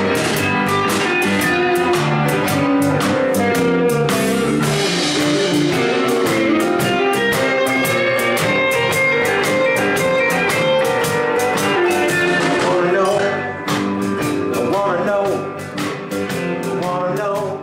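Live band playing an upbeat number on electric guitars, banjo, bass and drum kit, with an electric guitar lead over a steady drumbeat. The music drops a little in level after about thirteen seconds.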